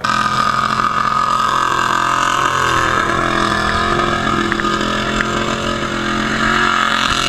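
Formula offroad car's engine running loud at steady high revs. It cuts in suddenly, dips a little in pitch midway, and falls off right at the end.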